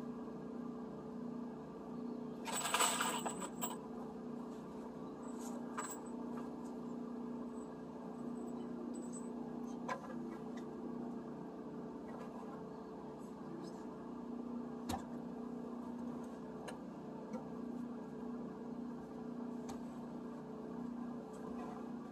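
A steady low hum with a short metallic jingling clatter about three seconds in, then a few single sharp knocks.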